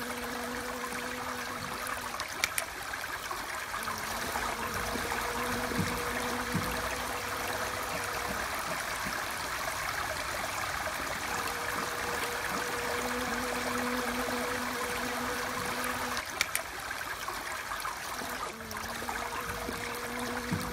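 A bee's wings buzzing in a low, steady hum that comes and goes in stretches of a few seconds, over a constant rushing like running water. Two faint clicks stand out.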